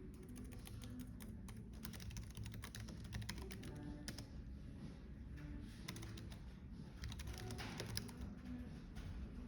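Typing on a computer keyboard: quick, irregular runs of key clicks with short pauses, over a low, steady cafe background hum.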